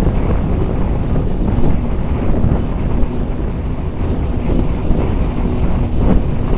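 Wind buffeting the microphone: a loud, steady rumble that is strongest low down, with no clear pitch.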